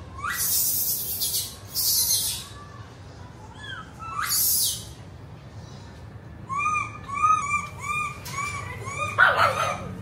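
Animal calls: three harsh, noisy bursts in the first half, then a run of short, arched chirps about three a second, ending in a louder call.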